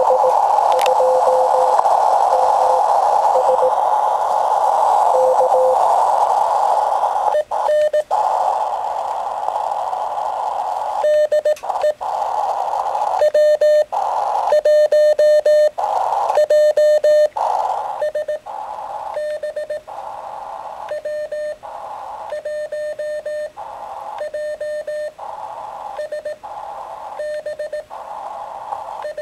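Amateur radio receiver audio: about ten seconds of narrow, filtered band hiss with a faint steady note. Then a single-pitch Morse code (CW) tone is keyed on and off in dots and dashes, with key clicks. It is loudest in the middle and carries on weaker and evenly to the end.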